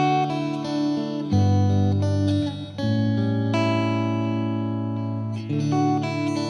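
Slow instrumental music on plucked guitar: ringing notes and chords that change every second or two.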